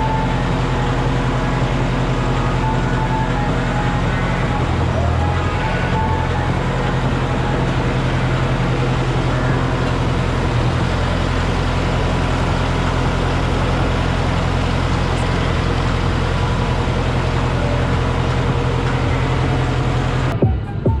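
Large farm machine's engine running steadily, a constant low drone with mechanical noise over it. It cuts off abruptly shortly before the end.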